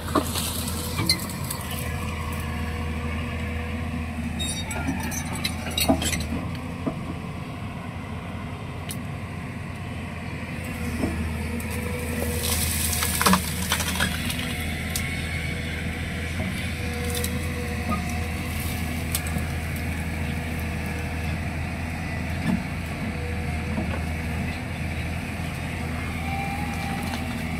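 Hyundai 215 crawler excavator's diesel engine running steadily under load while its bucket pushes through brush, with branches snapping and cracking now and then; the loudest crack comes about halfway through.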